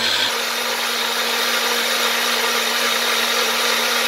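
Personal bullet-style blender motor running steadily at full speed, puréeing cucumber, lemon and garlic with no added liquid. Its hum steps up slightly in pitch about a third of a second in.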